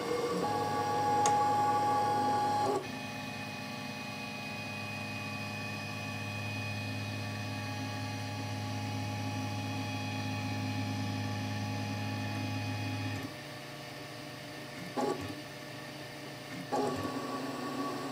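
Stepper motors driving a homemade CNC machine's gantry back and forth, a steady whine that changes pitch about three seconds in and stops about thirteen seconds in. A couple of brief sounds follow near the end.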